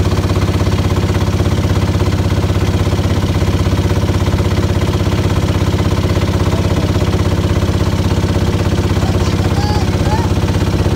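Boat engine running steadily with a rapid, even chugging pulse.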